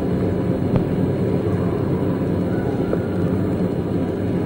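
Steady low background rumble and hiss of an old 1987 discourse recording, with faint steady tones and a faint click about a second in and another about three seconds in.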